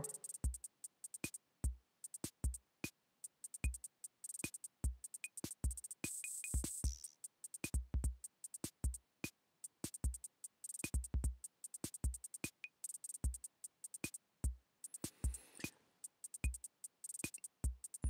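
Background electronic music made of sparse drum-machine hits: low kick thumps and sharp clicks, with a high hiss now and then.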